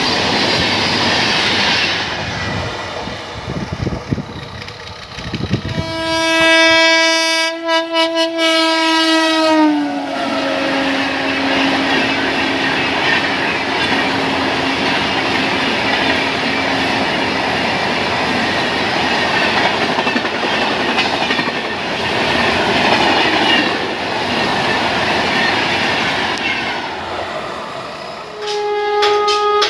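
Indian Railways express trains passing at speed, the coaches' wheels clattering over the rail joints. A long horn blast about six seconds in drops in pitch and fades away, and a second short horn sounds near the end.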